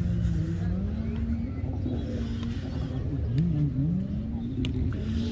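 An engine running with a steady low rumble, its pitch dipping and climbing back about three seconds in as it is revved.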